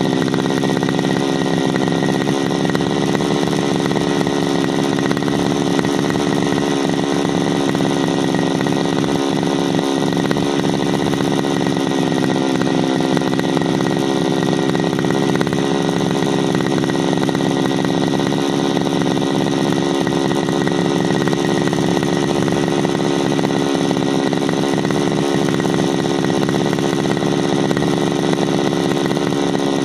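Backpack brushcutter's 33cc two-stroke engine idling steadily, its speed unchanging throughout, as it warms up before cutting.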